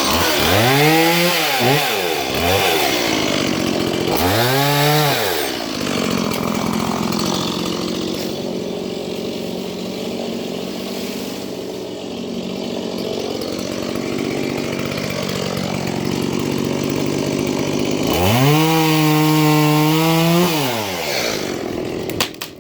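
Stihl MS 170 two-stroke chainsaw revving up and back down in three short throttle blips, then running at a lower, steady speed for about twelve seconds. It opens up again for a long high rev near the end before the engine falls away.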